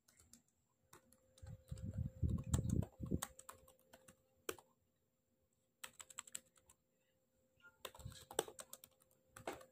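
Typing on a laptop keyboard in short bursts of key clicks with pauses between, and a few dull low thumps mixed in about two seconds in.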